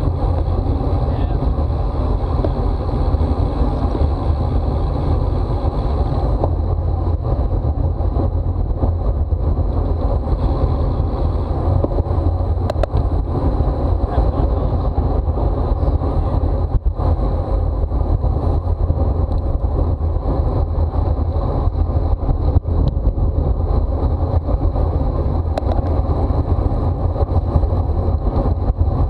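Steady rush of wind over a camera microphone on a racing bicycle at speed, a loud low rumble.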